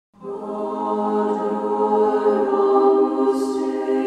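Choir of Benedictine nuns singing sacred music a cappella in long held notes, with a soft sung 's' near the end.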